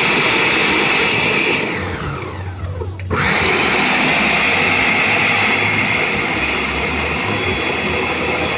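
Ninja blender motor blending frozen bananas and soaked dates. It is let off about a second and a half in and spins down with a falling whine, then starts again sharply about three seconds in and runs steadily.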